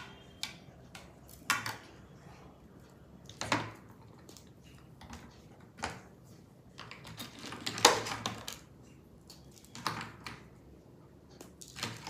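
A knife knocking and scraping against a plate while cutting a set slab of ginger barfi into pieces: a few separate sharp knocks a second or two apart, the loudest about eight seconds in.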